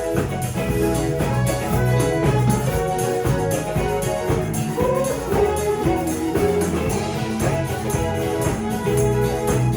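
Live band playing during a sound check: a drum kit with cymbals keeps a steady beat under bass and melodic instruments.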